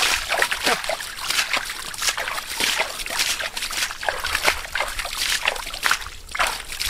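Hands sloshing and splashing through thick muddy water in a shallow mud pit, groping for eels: an irregular run of short wet swishes and slaps.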